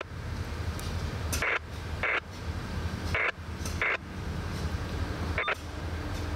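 Low, steady diesel rumble of an approaching CSX freight locomotive, broken by four short, sharp bursts of higher-pitched sound in the middle.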